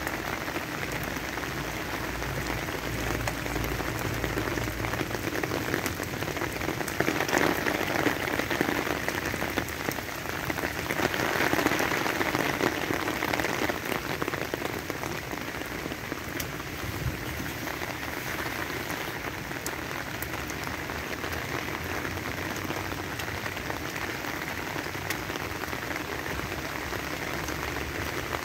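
Heavy rain falling on an umbrella, a steady hiss that grows louder for a few seconds about seven seconds in and again around eleven seconds in.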